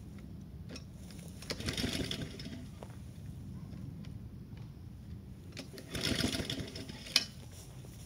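Small petrol engine of a Flo Blue Bird self-propelled wheeled brushcutter running at a steady low idle. Two short, louder rushes of noise come over it, about a second and a half in and again about six seconds in, and a sharp click comes just after seven seconds.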